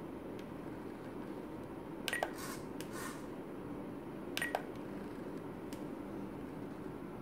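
Spektrum DX9 radio transmitter giving two short button clicks with brief beeps, about two seconds and four and a half seconds in, as its flap value is stepped. A short burst of noise follows the first click, over a steady low hum.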